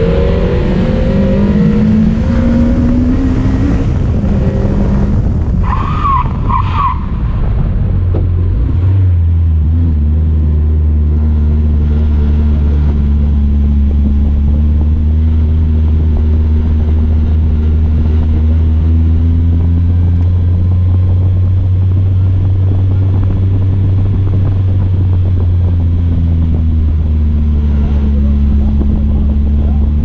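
BMW E30 rally car's engine running, its revs rising and falling for the first few seconds, with a short double squeal about six seconds in. From about nine seconds on it settles into a steady low drone at constant revs as the car rolls along slowly.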